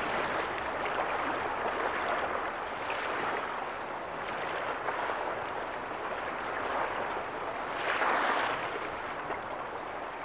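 Sea waves washing ashore: a steady rushing hiss that swells most about eight seconds in.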